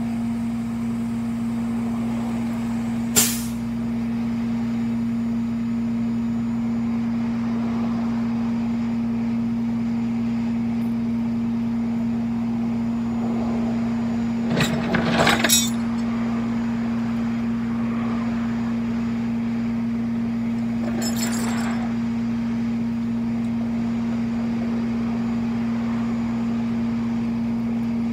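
Rollback tow truck running with a steady, even hum. A single sharp click comes about three seconds in, and a short burst of knocks and rattles about halfway through.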